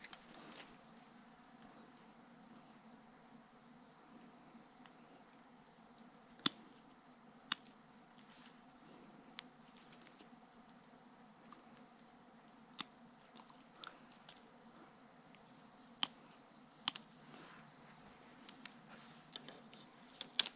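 Faint insects chirping in a steady, regular pulse with a constant high whine above, while a hand cutter snips and clicks sharply on a fibre drop cable about half a dozen times.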